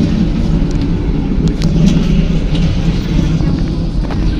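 Running noise heard from the passenger cabin of a moving public-transport vehicle: a steady low rumble with a few faint clicks.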